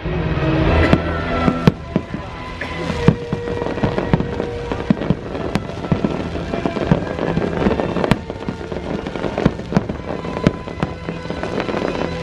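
Fireworks shells bursting overhead in a string of sharp bangs and crackles, over the show's music soundtrack playing throughout.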